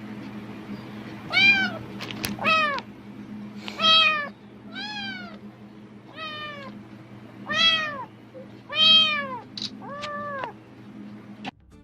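Domestic cat meowing insistently, about eight meows in a row, each rising then falling in pitch, over a steady low hum. The cat is reacting to a rustling plastic bag, which the uploader thinks it takes for a sign of food.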